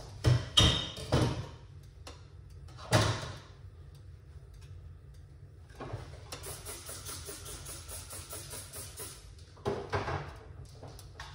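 Kitchen handling sounds, with several sharp knocks and clunks in the first second or so, another around three seconds in and a pair near the end. A soft hissing rush runs for about three seconds in the middle, over a steady low hum.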